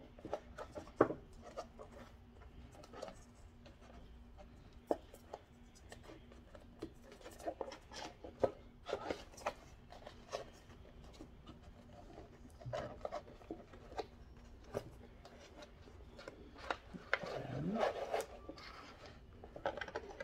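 Thin flexible plastic chopping mat rubbing and rustling as it is slid through the wire rings of a metal napkin holder, with scattered small clicks and taps.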